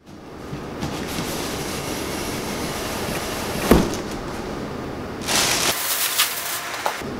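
Plastic air-cushion packing crinkling and rustling as it is handled and pulled out of a cardboard box, with a single knock about halfway through; the crinkling grows louder and sharper in the last two seconds.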